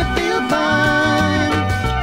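Background music: an instrumental stretch of a song, a held, gently gliding melody over a steady bass line.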